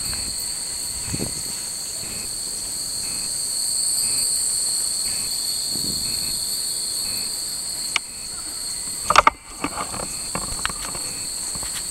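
Cicadas buzzing steadily in a high, unbroken drone, with a fainter short chirp repeating about once a second for the first several seconds. About nine seconds in, a few sharp clatters and knocks are the loudest sounds.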